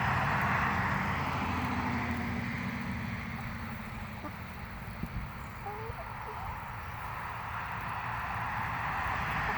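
Steady outdoor rumble and hiss, with a few faint short chicken calls around the middle.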